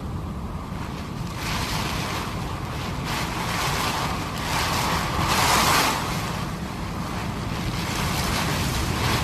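Strong wind and breaking surf, a continuous rush that swells in surges, loudest about five and a half seconds in, with wind buffeting the microphone.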